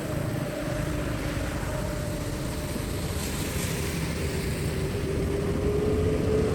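Floodwater rushing steadily through a drain, with a faint hum that rises a little in pitch in the second half.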